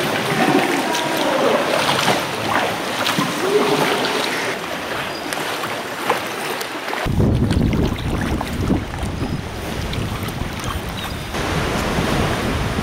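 Sea swell washing and slapping against rock and a kayak's hull. About seven seconds in, wind starts buffeting the microphone with a low rumble.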